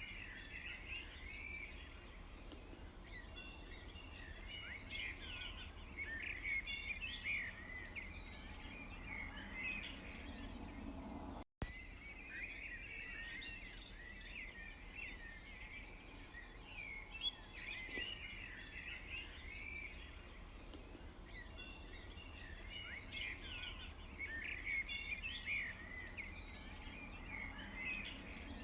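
Many small birds chirping and twittering together in a busy, overlapping chorus of short, quick notes over a faint low hum. The sound cuts out completely for a moment about a third of the way through.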